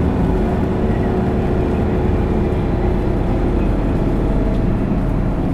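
Isuzu Erga PKG-LV234L2 city bus's inline-six diesel engine running steadily under way, a continuous low drone.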